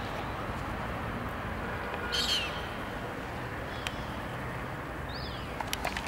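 Two short gull calls, one about two seconds in with a falling pitch and a second, fainter one after five seconds, over steady background noise. A few sharp clicks come near the end.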